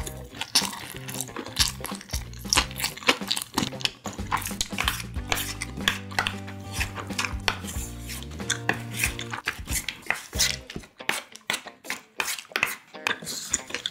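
Wooden spoon scraping and clicking against the inside of a metal tin lunch box as the rice and side dishes are stirred and scooped, many quick clicks in a row. Low background music runs underneath for about the first ten seconds.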